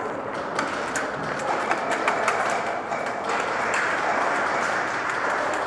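Airsoft guns firing in an echoing indoor arena: a rapid, irregular scatter of sharp clicks and taps from shots and BB hits over a steady noisy din.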